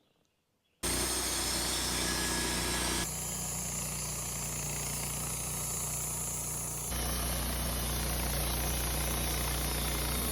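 Woodmizer LT15 sawmill's engine starts sounding abruptly about a second in and runs steadily, with two sudden changes in tone partway through.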